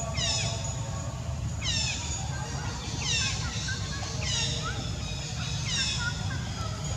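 A high-pitched call that falls sharply in pitch, repeated at an even pace about every second and a half, over a steady low rumble.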